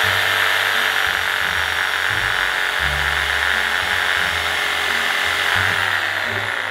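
Corded electric saw running steadily as it cuts into the trunk of a conifer, its motor pitch dipping slightly near the end. Background music with a bass line plays underneath.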